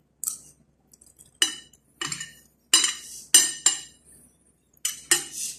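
Metal spoon and fork clinking and scraping against a ceramic dinner plate while scooping up rice, about eight sharp, irregular clinks with a brief ring.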